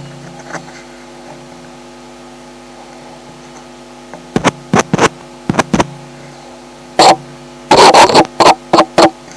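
Homemade piezo hydrophone and preamplifier picking up a steady electrical hum with many overtones. From about four seconds in, it is broken by around ten sharp, very loud knocks, bunched most closely near the end.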